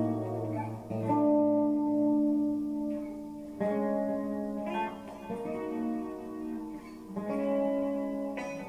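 Slow instrumental background music on guitar: sustained chords and single notes, a new chord struck every second or two.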